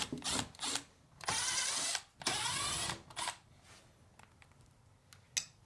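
Screws being backed out of a refrigerator's sheet-metal back cover with a 1/4-inch nut driver: a few short clicks, then two runs of driving of under a second each, and a few faint ticks near the end.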